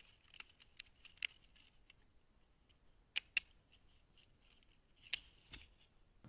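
Faint, scattered small clicks and taps, about eight in all, with a close pair of louder ones a little past the middle.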